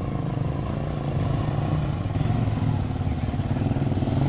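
Dirt bike engine running as the bike rides up a dirt road toward the listener, growing louder over the last couple of seconds as it comes close.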